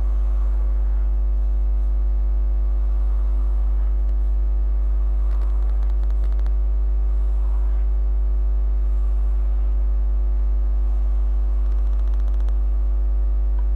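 Steady electrical mains hum with a stack of overtones, with faint scratches of a felt-tip marker drawing straight lines on paper.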